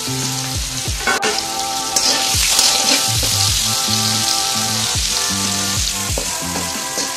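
Small dried fish (shutki) sizzling as they fry in hot oil in a kadai; the sizzle gets louder about two seconds in.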